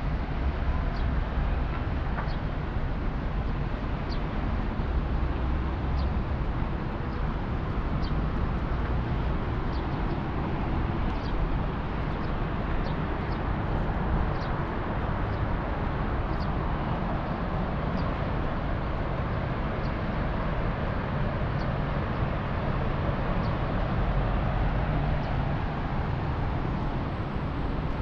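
Steady outdoor background noise, a constant low rush, with faint short high chirps about once a second.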